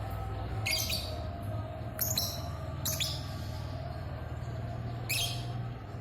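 Small songbird chirping in four short, high-pitched bursts spread over a few seconds, over a steady low hum.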